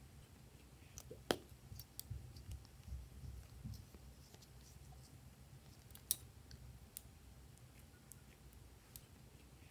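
Small scissors snipping pieces off a solid glue stick: scattered sharp clicks and snips, the loudest about a second in and again about six seconds in.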